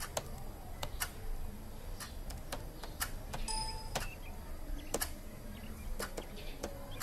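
Slow, hunt-and-peck typing on a laptop keyboard: single key taps at irregular intervals. About three and a half seconds in, the computer gives a short electronic beep.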